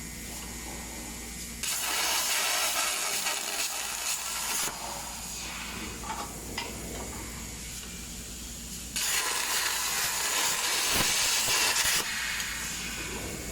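CNC plasma cutting torch on a tube cutting machine, hissing loudly in two stretches of about three seconds each, with a steady machine hum between them.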